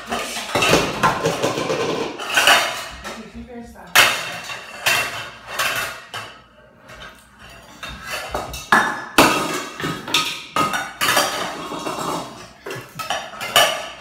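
Toddler banging stainless steel saucepans and lids together: irregular metallic clanging and clattering, each strike ringing briefly, with a short lull midway.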